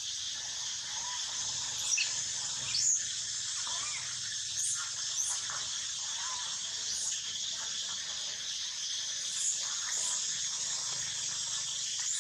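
Forest ambience: a steady high drone of insects, with about a dozen short, high chirps or squeaks scattered through it. The loudest chirps come about two and three seconds in.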